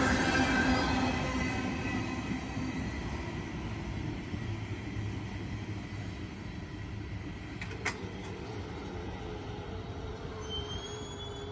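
A freight train rolling away over the rails, its rumble fading steadily, with wheel squeal ringing and dying out in the first few seconds. A single sharp click comes about eight seconds in.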